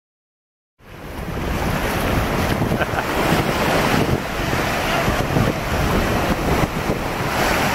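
Ocean surf washing in, with wind buffeting the microphone. The sound starts abruptly about a second in and then runs on as a steady, loud rush.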